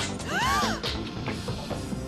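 Cartoon soundtrack: action music with impact hits, and a short cry that rises and falls in pitch about half a second in.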